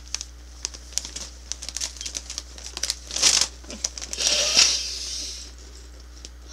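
Plastic bag of cheese curls crinkling as it is handled, with scattered crackling clicks throughout and louder rustles about 3 s in and again from about 4 to 5 s.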